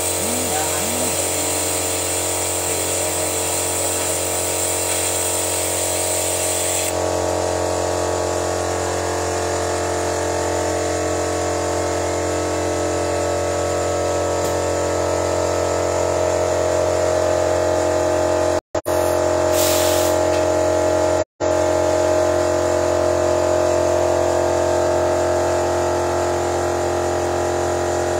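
Car engine running steadily while it is fed engine-flush cleaner from a pressurised canister, a constant mechanical hum. The sound breaks off twice for a split second near the middle.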